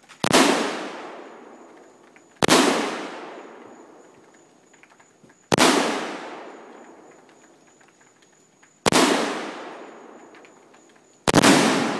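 Five single rifle shots from an AK-47, spaced unevenly about two to three and a half seconds apart, each trailing off in a long echo through the trees.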